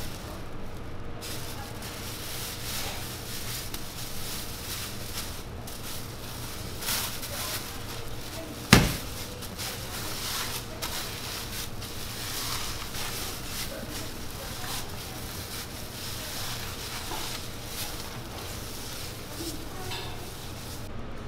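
Plastic wrap crinkling and rustling as hands wrap and smooth balls of dough, over a steady low hum, with one sharp knock about nine seconds in.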